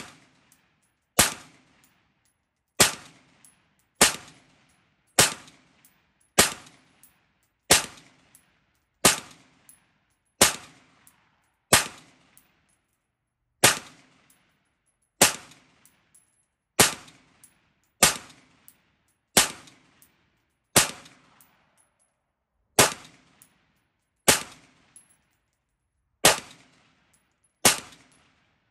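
Shots from a 20-inch-barrel 5.56 mm semi-automatic AR-15 rifle: slow, steady aimed fire of about twenty rounds, roughly one every one and a half seconds, each a sharp crack with a brief echo.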